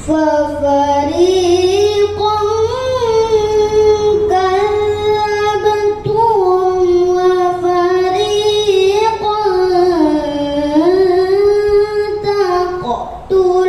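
A young girl chanting Quran recitation (tilawah) in the Hijaz maqam: long sustained melodic phrases with ornamented turns in pitch, broken briefly by breaths about four seconds in and again near the end.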